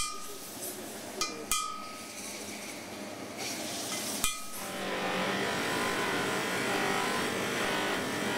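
Hammer taps on a steel chasing chisel held against the gold trophy casting: four sharp metallic strikes, each with a brief ringing tone, one at the start, two close together about a second and a half in, and one about four seconds in. From about five seconds in, a steady rushing noise takes over.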